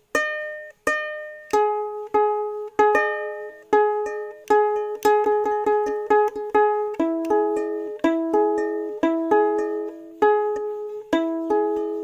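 Background music: a melody of plucked string notes, about two to three a second, each note struck sharply and ringing away.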